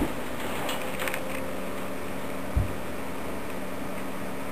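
Desktop PC tower's fans humming steadily, with a few faint clicks about a second in and a soft low thump about two and a half seconds in.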